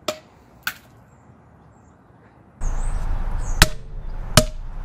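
Google Home Mini smart speaker dropped from about six feet onto concrete: a sharp knock as it lands and a lighter one as it bounces about 0.7 s later. A bit over halfway through, a steady outdoor rush comes in and two more sharp knocks follow, each with a brief ring.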